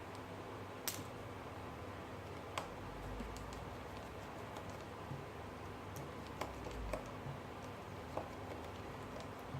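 Scattered small sharp clicks and taps, about a dozen at uneven intervals, over a steady low hum: small tools and phone parts being handled during a smartphone screen repair.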